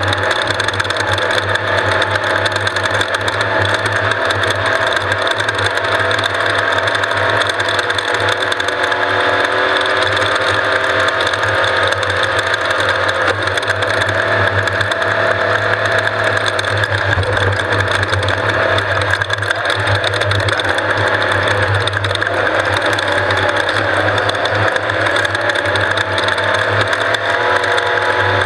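Off-road race vehicle's engine running steadily while driving, its pitch drifting slightly up and down, with a continuous mechanical rattle.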